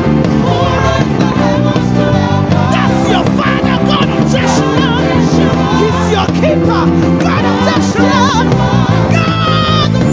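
Live church praise music: voices singing with vibrato over a band, with bass guitar holding sustained low notes.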